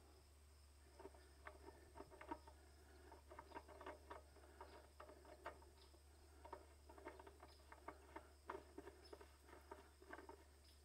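Faint, irregular ticks and scrapes of a new Generac 070185E oil filter being turned by hand onto its threaded mount on a standby generator's engine.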